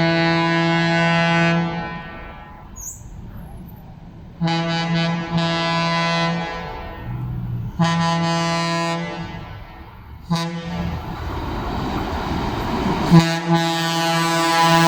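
Locomotive air horn, a Wabco E-2, sounding a series of blasts: a long one at the start, longer ones about four and a half and eight seconds in, a short toot a little after ten seconds, and another starting about thirteen seconds in. The noise of the passing train grows louder over the last few seconds.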